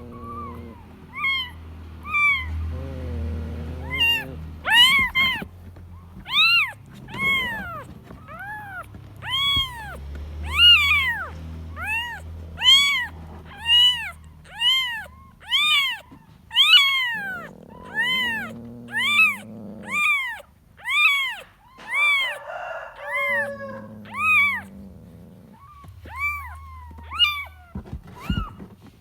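A kitten meowing over and over, high-pitched calls that rise and fall, about one a second: a kitten calling for its mother. A few lower, deeper calls come in twice during the run.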